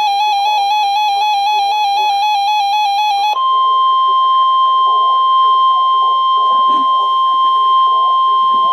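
A weather alert radio's alarm warbling rapidly between two pitches. About three seconds in it gives way to the steady 1050 Hz NOAA Weather Radio warning alarm tone, one loud unbroken high tone sent as the weekly test of the alarm system.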